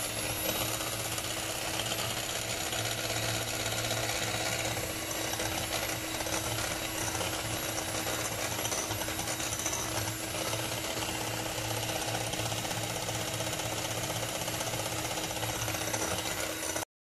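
Electric hand mixer running at a steady speed, its beaters whipping powdered whipped-topping mix and cold milk in a glass bowl. It cuts off suddenly near the end.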